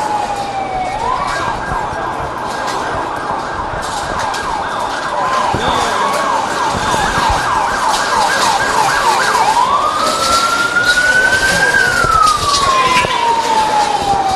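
Emergency vehicle siren sounding. It moves from a slow falling wail to a fast warbling yelp about a second in, then returns to a slow rising and falling wail near ten seconds.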